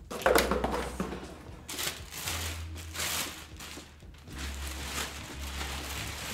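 Clear plastic wrapping rustling and crinkling as it is pulled off a folded rollator, in uneven swells, loudest just after the start.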